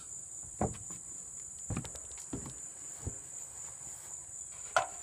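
Crickets chirring steadily at a high pitch. Five short, separate thumps are heard over them, the last and loudest just before the end.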